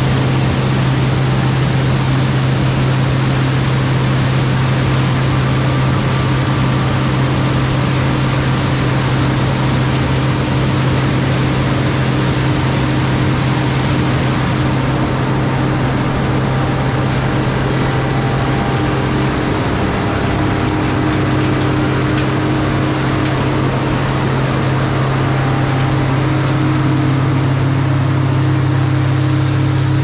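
Case IH 1680 combine's diesel engine running steadily while harvesting corn, a constant low hum over a wash of machine noise, its tone shifting slightly about two-thirds of the way through.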